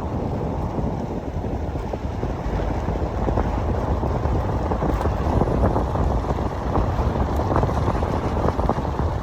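Wind buffeting the camera microphone: a steady, loud, low rumble with no distinct tones.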